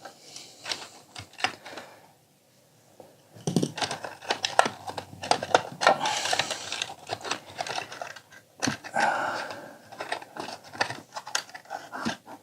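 Handling and prying apart the plastic internals of a budget LCD projector: a busy run of clicks, scrapes and crinkling, with a short quiet pause about two seconds in.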